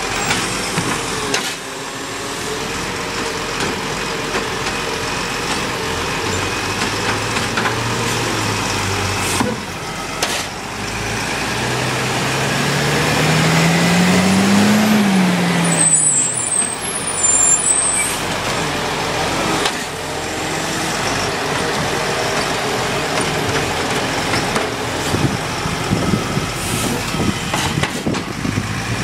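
Side-loader garbage truck's diesel engine running. Its pitch climbs steadily for a few seconds around the middle and then drops back as the automated arm lifts and tips a wheelie bin.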